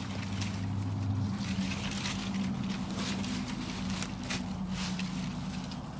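Dry leaves and twigs crackling and snapping as someone moves through undergrowth, over a steady low hum.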